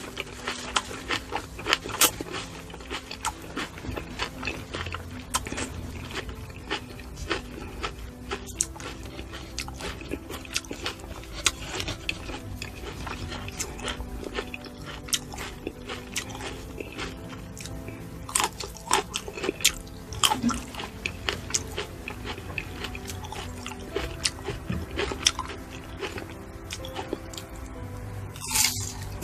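Close-up eating sounds of someone biting and chewing fruit: many sharp crunches and clicks, over background music.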